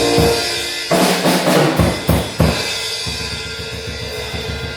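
Church band's live drum kit playing a burst of hits and cymbal crashes over held keyboard chords. The drumming is densest from about a second to two and a half seconds in, then the chords ring on more quietly.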